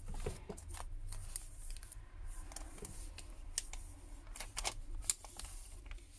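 Scattered light clicks and taps from a smartphone and its packaging being handled, irregular and unevenly spaced.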